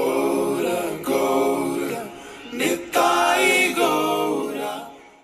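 Voices singing a devotional chant in long held phrases, fading out at the end.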